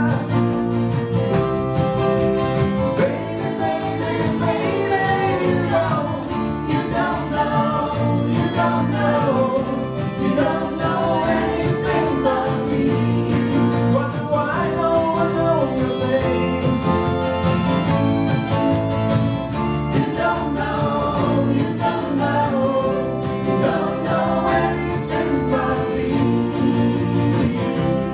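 Live song: voices singing a melody over guitar accompaniment.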